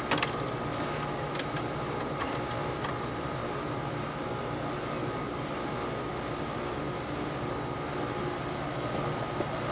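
Amana 5P2MY through-the-wall air conditioner running just after start-up, a steady hum of its rotary compressor and fan, with a short click right at the start. The compressor is drawing only about 2.7 amps and has not yet begun pumping or building head pressure.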